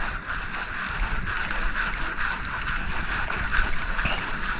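Baitcasting reel being cranked, its gears clicking and whirring steadily as the lure is retrieved.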